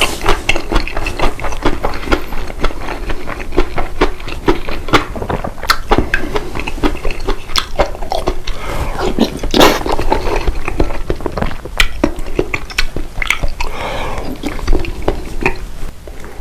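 Close-miked eating sounds: chewing, with a constant run of wet mouth clicks and smacks, and a few softer, longer noisy stretches in the middle and near the end.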